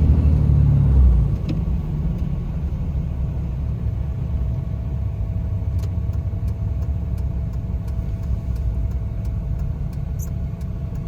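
Cummins turbo-diesel pickup driving while towing a trailer, heard from inside the cab as a steady low engine and road rumble. It eases slightly about a second in.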